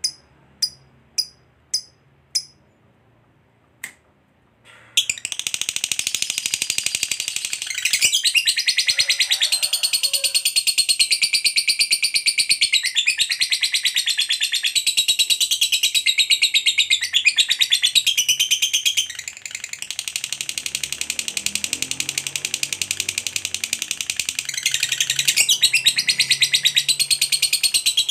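Lovebird giving short sharp chirps about twice a second, then after a short lull, about five seconds in, a long unbroken rapid chattering trill (ngekek panjang) that rises and falls in pitch.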